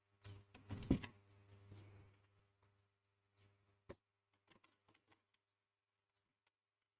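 Light clicks and taps of small metal parts and screws being handled while a car radio unit is put back together, loudest about a second in, then thinning to a few faint ticks.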